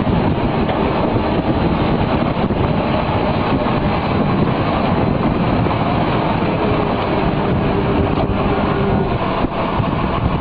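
Tractor-drawn feed mixer wagon running as it unloads feed through its side discharge conveyor: a steady, loud mechanical noise.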